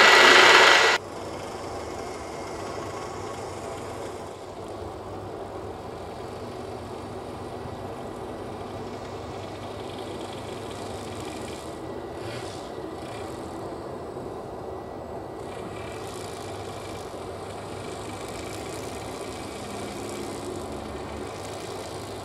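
Train at a railway station: a steady rumble and hum from the rolling stock, after a louder rushing noise cuts off abruptly about a second in.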